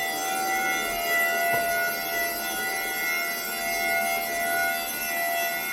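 eufy X10 Pro Omni robot vacuum running, its motor giving a steady whine of several held tones over a hiss.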